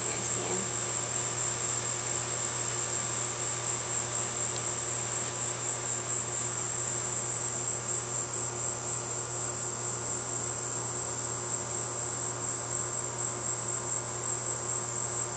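Steady, high-pitched evening chorus of insects trilling without a break, with a low steady hum underneath.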